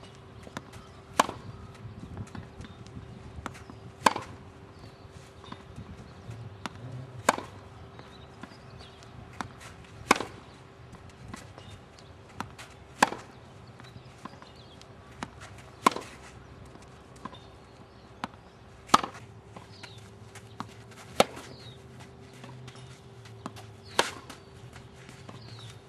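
Tennis racket striking the ball in a rally, a sharp pop about every three seconds, with fainter ticks in between. A faint steady hum runs underneath.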